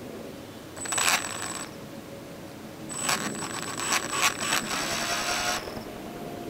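RC helicopter's electric motor run up in two short bursts, about a second in and again from about 3 s to 5.5 s, its pinion driving the plastic main gear with a fast rattling clatter and a thin high whine. This is the unwanted noise whose cause the owner suspects lies in the motor or the main gear.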